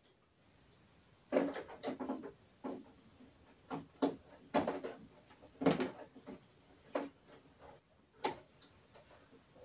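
Irregular knocks and clunks, about a dozen, like objects being handled and set down on a desk.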